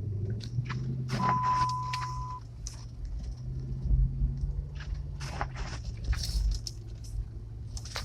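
Car engine pulling away through snow after a hard push on the throttle, heard from inside the car, running with a steady low hum. About a second in, a single steady electronic beep lasts about a second, with scattered clicks and crunches throughout.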